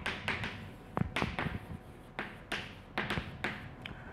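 Chalk tapping and scratching on a blackboard as words are written: an irregular run of sharp taps with short scratchy strokes between them.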